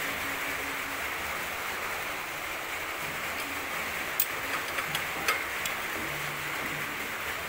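A few light, sharp clicks of a hand tool on the bicycle's chrome fender bracket and springer fork, about halfway through, over a steady hiss.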